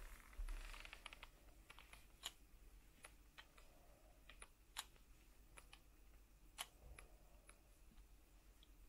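Plastic toy figures being handled: faint scattered clicks and taps, a few sharper than the rest, with a brief rustle about half a second in.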